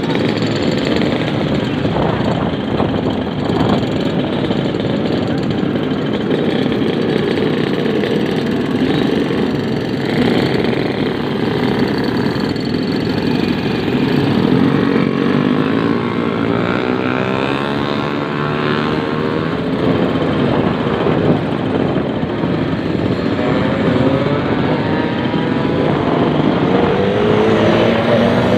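Yamaha RX-King two-stroke motorcycle on the move, its engine running under heavy, steady wind and road rush, with the engine pitch rising and falling in places.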